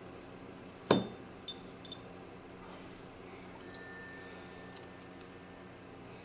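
Small metal parts of a disassembled ignition lock cylinder clinking as they are handled: one sharp, ringing clink about a second in, then two lighter clinks and a few faint ticks.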